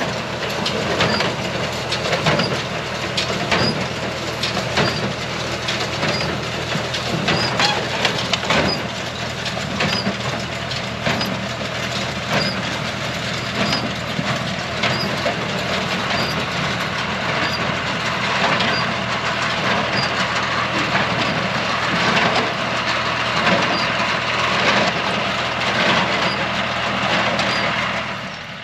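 Tractor engine running steadily while a John Deere 24T square baler works hay, with a rhythmic mechanical clatter and knocking and a light tick about once a second. The level drops off near the end.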